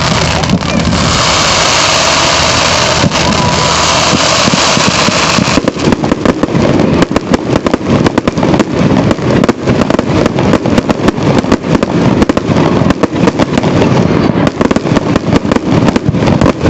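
Fireworks display: a dense, steady rushing noise for the first few seconds, then from about five and a half seconds in a rapid barrage of bangs and crackles, several a second.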